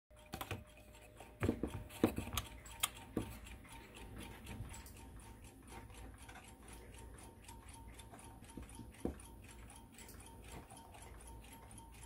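Wind-up alarm clock's mechanical movement ticking quickly and evenly, a 1950s–60s Tokyo Clock music-box alarm clock, with a few louder knocks in the first three seconds and another about nine seconds in.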